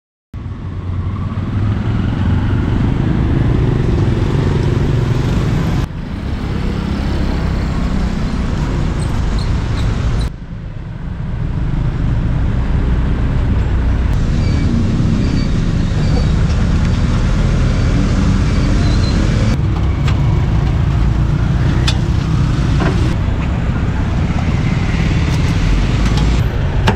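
Street traffic noise: a steady rumble of motorbikes and cars passing, with a couple of brief knocks about two-thirds of the way through.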